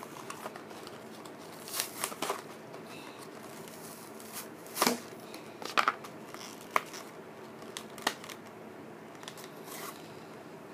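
Plastic toy packaging being handled in the hands: scattered crinkles and sharp clicks at irregular times, with the loudest run of clicks between about five and seven seconds in.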